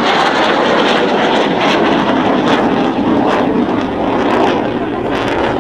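Jet noise from a Panavia Tornado's twin RB199 afterburning turbofans as the fighter makes a low display pass. The sound is loud and steady, and deepens in pitch as the jet goes by and moves away.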